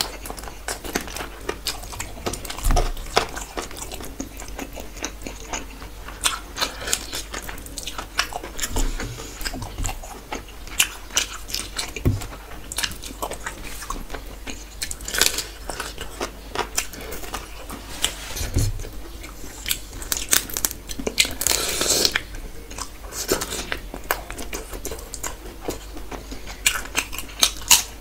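A person eating chicken leg curry and rice by hand: close-miked biting and chewing, with many short, sharp crunchy clicks.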